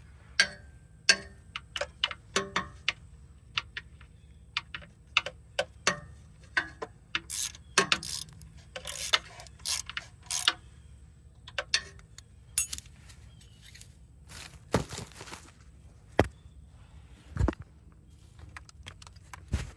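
Hand tools on metal: a socket ratchet on an extension clicking in short runs, among scattered sharp metal clinks and knocks.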